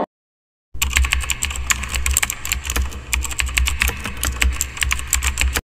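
Computer keyboard typing sound effect: rapid, irregular key clicks that start about a second in and cut off abruptly near the end.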